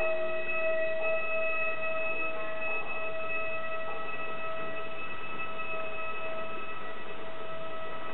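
Gagaku court music: a wind instrument slides up into one long held note and sustains it, the note fading away near the end.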